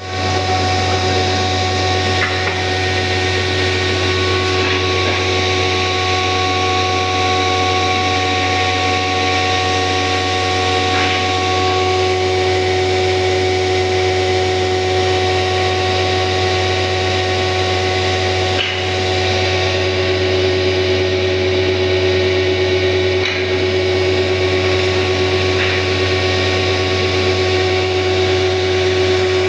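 Electric woodworking power tool running steadily on wood, its motor hum holding a constant pitch with slight shifts as the load changes.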